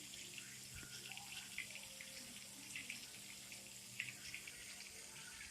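Chicken frying in hot Crisco shortening in a chicken fryer pan: a faint, steady sizzle with many small crackles, over a low steady hum.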